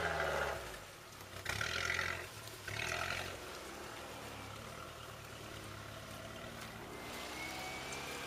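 Engine of a boxy Mercedes G-Class-type 4x4 working slowly up a steep, rutted dirt track: a low steady drone with two short surges, about one and a half and three seconds in.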